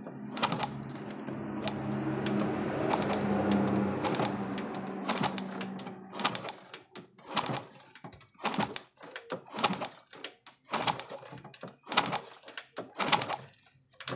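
A spark plug grounded on a motorcycle's cylinder head, snapping with sharp clicks as the engine is turned over: the CDI ignition is giving spark again after a new CDI unit has been fitted. The clicks come about once a second in the second half, with a low steady hum under the first six seconds.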